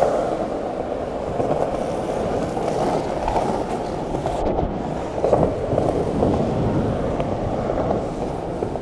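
Skateboard wheels rolling fast over a city sidewalk, a steady rough rumble with a brief knock about five seconds in.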